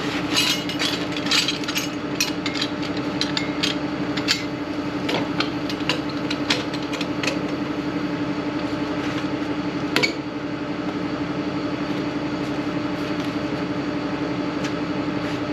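DAF combi vacuum tanker lorry running with a steady hum, with clanks and knocks of its large suction hose being pulled out and handled, busiest in the first half and with one sharper knock about ten seconds in.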